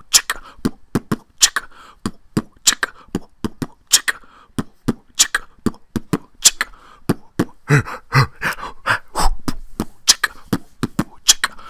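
Beatboxing: a steady rhythm of mouth-made percussion, sharp clicks and snare-like hits, with a stronger beat about every second and a quarter and lighter clicks between.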